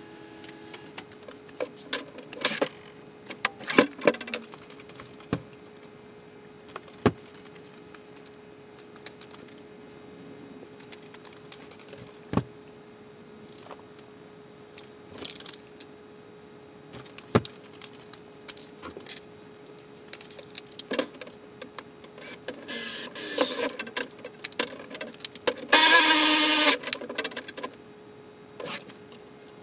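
Scattered clicks, taps and knocks of hardware and tools being handled on the plastic sled of an Otter X-Over ice-fishing shanty during assembly, over a faint steady hum. A loud rasping noise lasting about a second and a half comes near the end.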